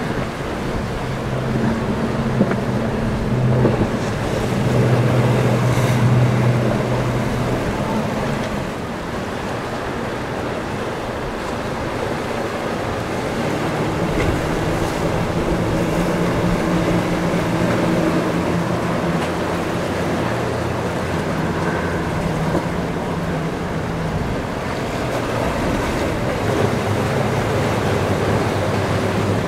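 Outboard-powered boats running past at speed: a low engine drone over the rush of wake and waves. The drone swells twice, first a few seconds in and again from about the middle, as boats pass in turn.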